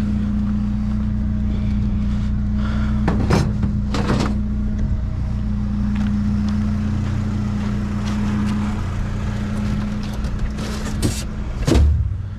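Truck engine idling with a steady hum, with a few short clatters and a heavier thump near the end.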